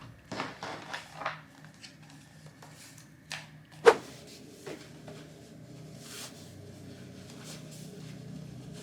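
Scattered clicks and knocks of objects being handled in a small room, with one sharper knock about four seconds in.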